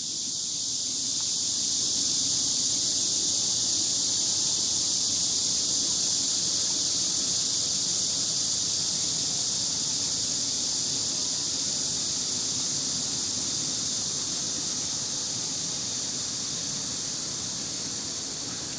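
Steady high-pitched drone of an insect chorus, rising a little over the first two seconds and easing off slowly toward the end.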